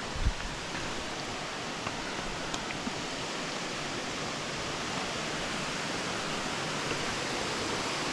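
Waterfall swollen by heavy rain, rushing steadily and growing slightly louder, with a few faint ticks in the first few seconds.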